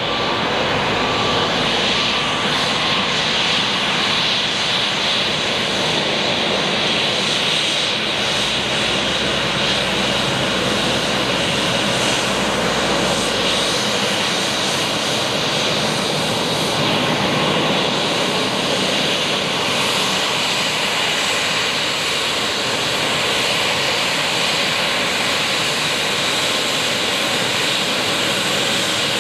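Embraer 195 jet's twin GE CF34-10E turbofan engines running at taxi power, a steady, loud, high-pitched jet hiss that holds evenly throughout.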